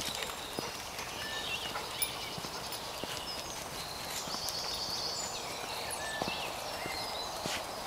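Footsteps on a muddy woodland path with a few soft knocks, while birds sing in short chirps, with a quick run of high notes about halfway through.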